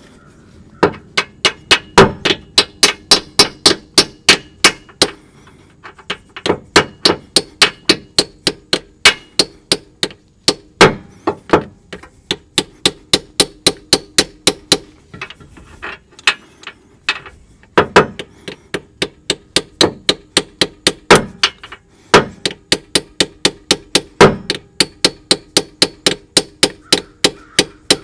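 Repeated hammer blows on a tool set under the old right-hand axle seal of the GM automatic transaxle, deforming and collapsing the seal so it can be extracted. The strikes come about three to four a second in runs with short pauses between them. Each blow rings metallically.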